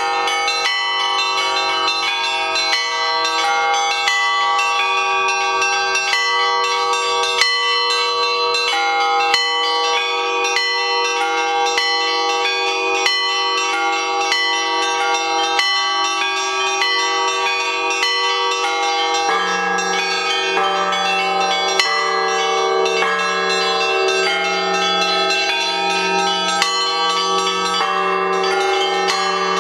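Russian Orthodox bronze church bells rung by a zvonar, a professional bell-ringer: a continuous peal of rapid, overlapping strikes on several bells. A deeper bell joins about two-thirds of the way through.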